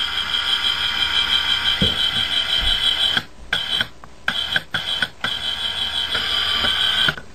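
High whine of a camcorder's zoom motor, running in stretches that stop and restart about four times while the picture is being adjusted. A couple of faint low handling bumps about two seconds in.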